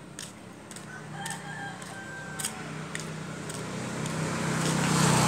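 A rooster crows about a second in, one call lasting over a second. After that a motor vehicle's engine comes in and grows steadily louder as it approaches, with regular crunching footsteps on gravel throughout.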